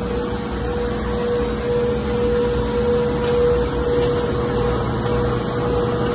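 A corn flakes hot air roasting machine running: a steady mechanical drone with a constant mid-pitched hum, as the roasted flakes feed out along the discharge tray.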